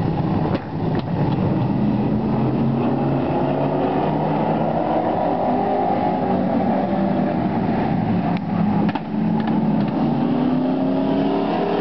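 A pack of stock race cars lapping a short oval, several engines running hard together, their pitch rising and falling as they go through the turns.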